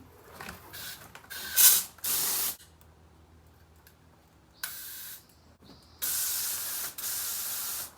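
Garden hose spray nozzle squeezed on and off, hissing water out in short bursts, then a longer spray of about two seconds near the end.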